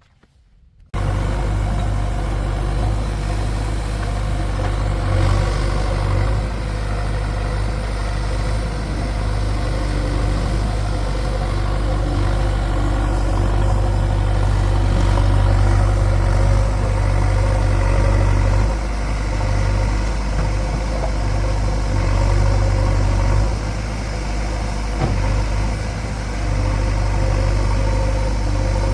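Heavy diesel engine running steadily, starting suddenly about a second in, with a deep low hum and a few brief dips in level.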